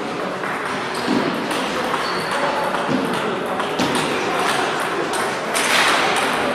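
Table tennis balls clicking off paddles and tables in an irregular stream of sharp taps, from the match and neighbouring tables in a large hall.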